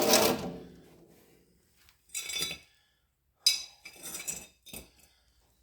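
Loose metal parts clinking and clattering in a few short bursts: pieces of a broken parking brake shoe and loose rotor hat bolts coming out of the rear hub. A louder noise fades out in the first second.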